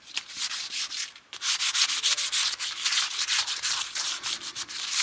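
A white cleaning wipe rubbed quickly back and forth across the glass of a Holley EFI dash display, wiping off fingerprints. The scratchy strokes come fast, with a short pause about a second in.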